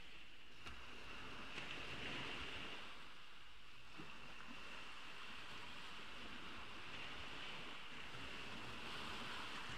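Gentle ocean waves washing ashore, swelling softly and easing, with a faint steady high-pitched hum over them.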